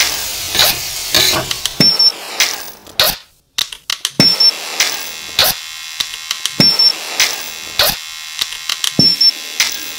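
Background music: a sparse, percussive track of sharp clicks and ticks on a steady beat, about one accent a second.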